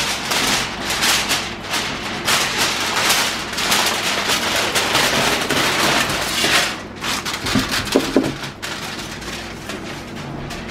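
Aluminium foil crinkling and crackling as a sheet is pulled, folded and crumpled by hand over a metal baking pan. The dense crackle dies down after about seven seconds.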